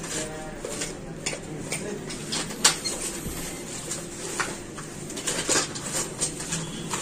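Scattered light clicks and clinks of small metal tools and parts being handled on a repair workbench, the sharpest knock about two and a half seconds in.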